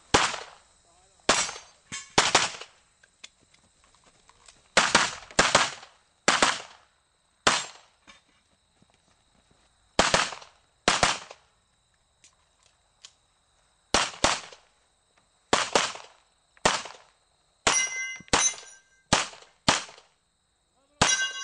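Pistol shots from a CZ Shadow, fired mostly in quick pairs with short pauses between groups. Near the end, steel plates ring after each hit.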